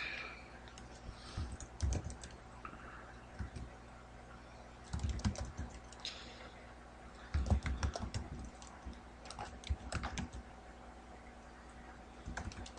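Computer keyboard typing: several short bursts of keystrokes separated by pauses, as router commands are typed in.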